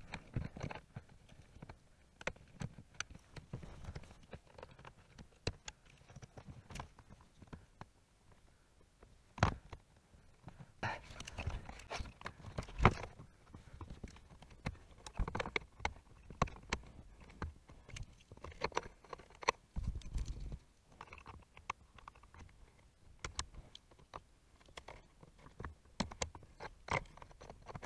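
Plastic wiring-harness plugs being pushed and clicked into a Volvo V40's body control module by hand, with scattered small clicks, knocks and rustling of the wiring. Sharper knocks come about nine and a half and thirteen seconds in.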